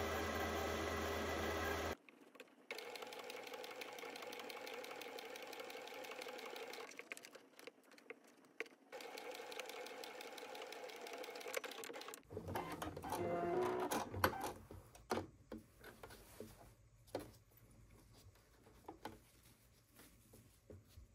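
Electric sewing machine stitching a seam in steady runs that stop and start a few times. In the second half the running gives way to scattered clicks and taps.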